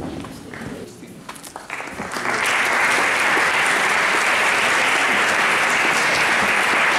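Audience applauding, breaking out about two seconds in and then holding steady.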